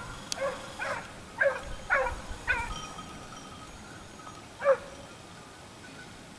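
Pack of hunting hounds baying: about five calls in the first three seconds, then one louder call near the end, as the hounds follow a wild boar's scent trail.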